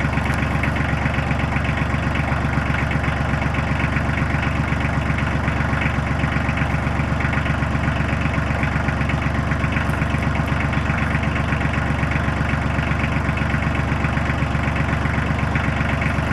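Farm tractor engine idling steadily while it warms up after a start, with an even, fast pulse.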